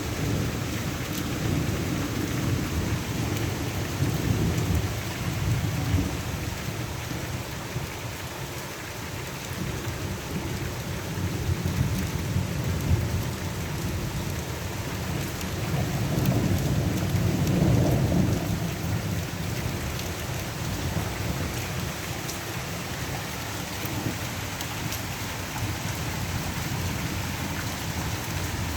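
Steady heavy rain with distant rolling thunder, the low rumble swelling twice, about a third of the way in and again a little past halfway.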